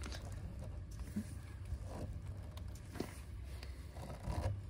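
A few faint knocks and clicks from steel bar clamps being set and tightened on a freshly glued door edge, over a steady low rumble.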